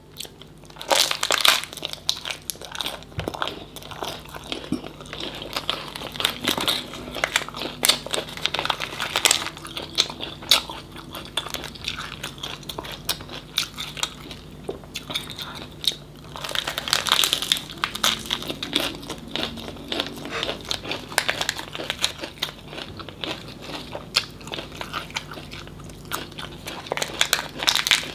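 Close-miked crunchy chewing and biting of crisp fried tôm nhũi, small crustaceans, wrapped in lettuce, with crinkling of leaves being handled. Dense crackly crunches throughout, louder in spells about a second in, around seventeen seconds in and near the end.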